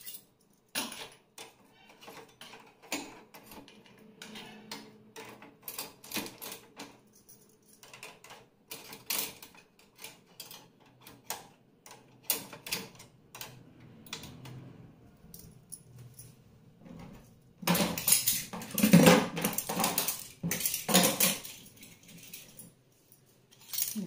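Stainless-steel spoons and utensils clinking as they are set one by one into a dishwasher's cutlery rack, in scattered light metallic clicks. Near the end a louder, denser clatter of steel dishes and the rack lasts a few seconds.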